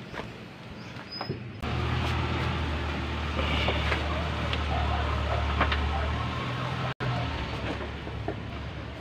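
A low, steady rumble like a motor vehicle's engine running nearby, starting abruptly about a second and a half in, with a few light metallic clicks over it.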